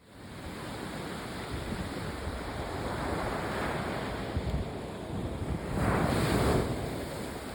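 Sea waves breaking and washing onto the beach, with a louder wave breaking about six seconds in. Wind buffets the microphone throughout.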